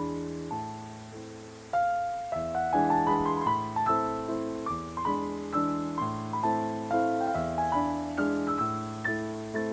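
Background instrumental music: a melody of struck notes over held low notes, at an even flowing pace.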